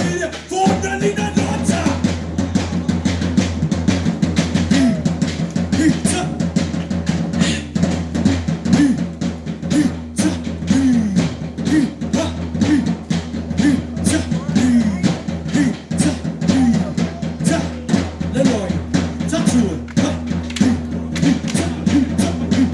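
Fast, driving drumming for a Pacific Islander stick dance, the beats coming in a quick steady rhythm, with short gliding vocal calls repeating over it.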